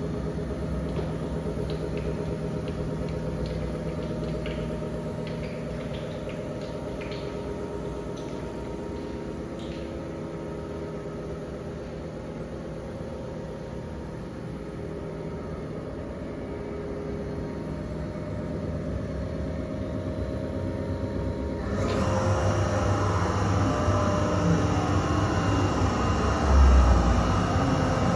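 A steady mechanical hum with a low rumble. About 22 seconds in it turns abruptly louder and noisier, and a loud low thump comes near the end.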